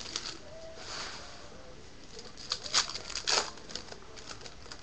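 Foil wrapper of a Topps Mini baseball card pack crinkling and tearing as it is ripped open. There are a few sharp crackles, loudest between about two and a half and three and a half seconds in.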